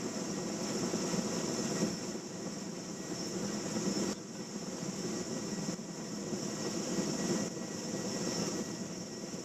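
Erickson S-64 Aircrane heavy-lift helicopter running steadily, its twin turbine engines and rotor making a continuous drone with a high turbine whine, with a few abrupt shifts in level.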